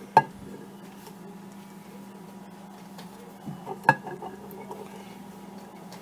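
Hen's eggs being set down on a ceramic plate: two sharp clicks of shell on the plate, one just after the start and one about four seconds in, over a steady hum.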